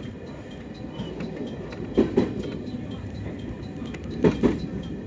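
Inside a moving electric commuter train: a steady running rumble, with the wheels clicking over rail joints in pairs (clickety-clack), two pairs about two seconds apart.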